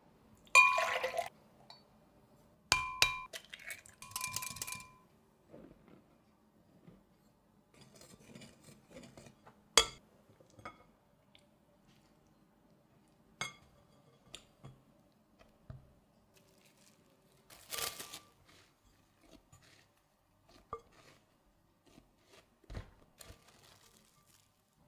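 Glass bowls and small ceramic dishes clinking, several times in the first few seconds, each strike ringing briefly. Quieter scattered taps and scrapes follow as a spatula stirs flour and liquid in a glass mixing bowl.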